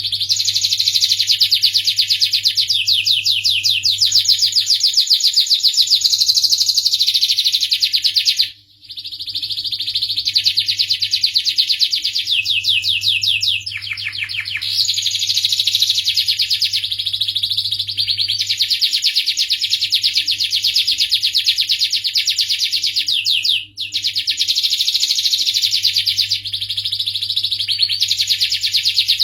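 Domestic canary singing a long, nearly unbroken song of fast trills made of rapidly repeated high notes, pausing briefly twice. A faint steady low hum runs underneath.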